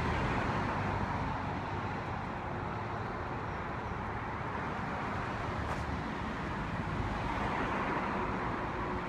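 Steady traffic noise from cars on a busy road.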